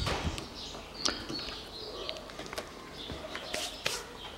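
Birds chirping faintly in the background, with a few light plastic clicks as the gasket is pressed into the door-handle opening.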